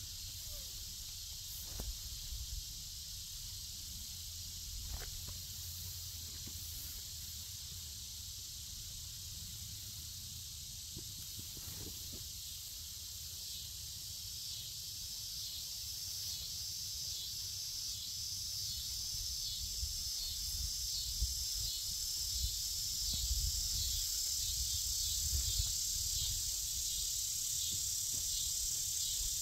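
Steady, high-pitched insect chorus in summer woodland, getting louder and pulsing from about halfway through. A few soft knocks and rustles come from a wool blanket being spread on grass bedding.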